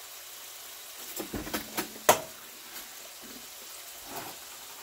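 A person eating: a few soft mouth and utensil noises, then one sharp click about two seconds in, over a faint steady hiss.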